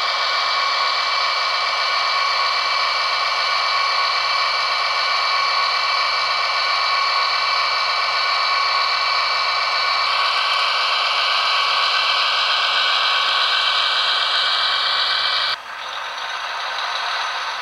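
Diesel engine sound of a Roco H0-scale TEE RAm railcar model, played by its ESU sound decoder through a small onboard speaker: a steady, thin, hissy running sound with a faint high whine and almost no bass. About fifteen seconds in it drops suddenly and carries on quieter.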